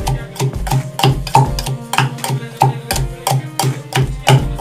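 Background music with a steady, quick beat and sustained notes.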